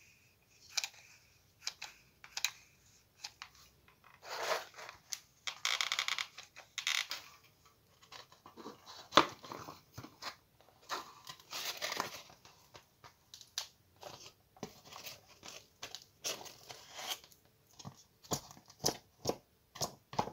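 Handling noise from foam board and a foam motor mount being worked by hand: scattered clicks and taps with several short rustling, scraping stretches.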